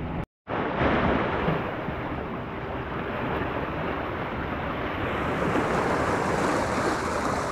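Sea waves breaking and washing against concrete tetrapod blocks of a breakwater, a steady surf noise with wind on the microphone. The sound cuts out for an instant just after the start.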